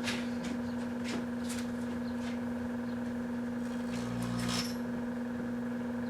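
A 1984 Kenmore microwave oven humming steadily while Morning Glory sparklers burn inside it, with scattered sharp crackles and a brief louder burst of crackling about four seconds in.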